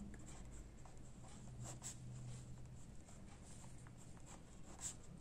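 Pen writing on ruled notebook paper: faint scratching strokes as a word is written out.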